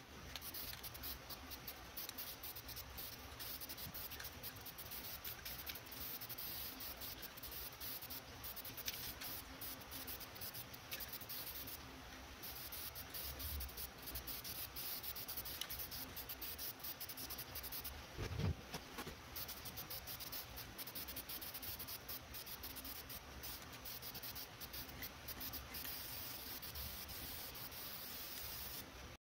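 Aerosol spray paint can hissing in repeated short bursts, with a single low thump about eighteen seconds in.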